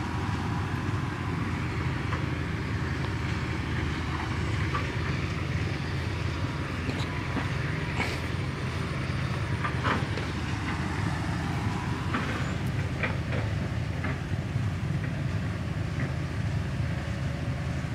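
Small engine-driven water pump running with a steady low drone, with a few faint clicks on top.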